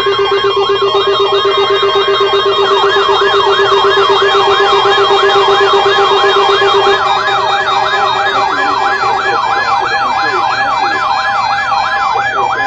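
Loud electronic siren-style alert tone: a fast warble sweeping up and down about three times a second over a steady buzzing tone, the steady tone weakening partway through.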